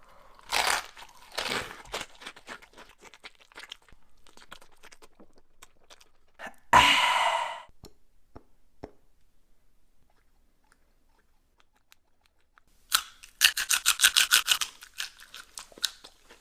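Close-mic'd crunchy bites and chewing of a Takis-topped burrito. There are two crunches early on, a loud crunch around the middle, and a quick run of about ten crunches near the end, with soft mouth clicks in between.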